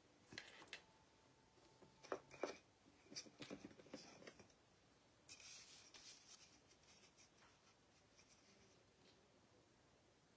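Near silence, with a few faint clicks and taps and a brief soft rustle in the first half as hands and a marbling tool work at a plastic tray of floating paint.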